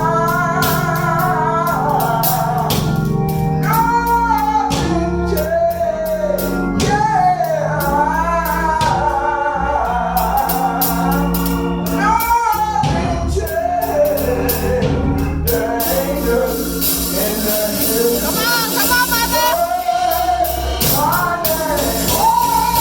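Gospel song: voices singing a melody over sustained low notes, with a tambourine keeping a steady beat.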